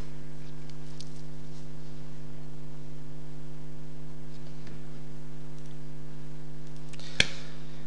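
Steady electrical mains hum, a constant buzz made of several fixed pitches, with a single sharp click about seven seconds in.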